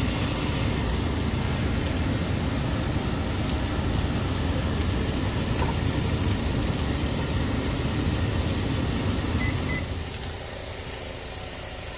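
Steady low motor-like hum with a hiss over it, growing quieter about ten seconds in.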